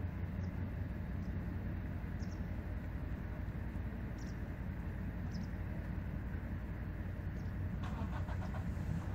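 Steady low outdoor rumble, with faint short high chirps about once a second and a brief run of rapid clicking near the end.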